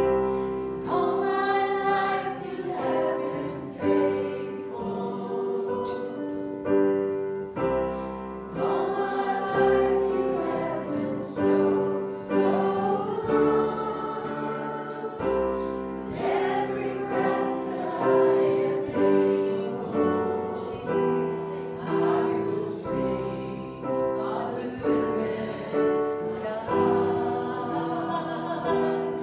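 A congregation or choir singing a hymn, with piano accompaniment.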